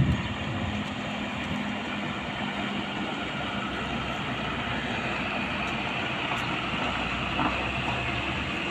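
Diesel engine of an articulated truck running steadily at low speed as it pulls a loaded flatbed semi-trailer slowly past, a low, even drone.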